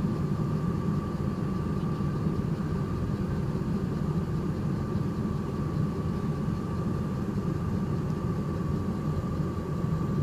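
Steady low mechanical hum with a faint, even whine above it, unchanging throughout.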